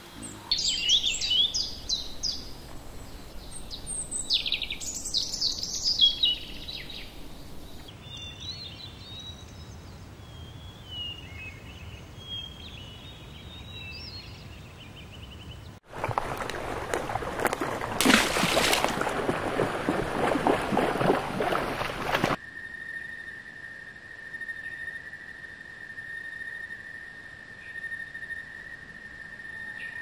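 Songbirds chirping and singing, then, about halfway through, a hippopotamus splashing heavily through shallow water for several seconds. After that a single steady high tone holds to the end.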